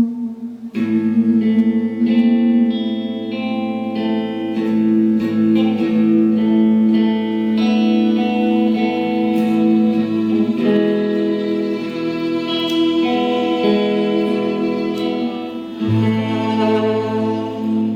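A band playing a guitar-led instrumental passage: sustained chords over a low bass note, which drops out partway through and comes back near the end.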